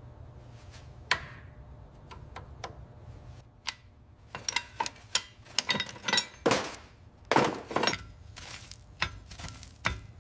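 Metal parts and hand tools clinking and knocking: a run of sharp strikes, a few with a short ring, sparse at first and busiest in the middle, over a steady low hum.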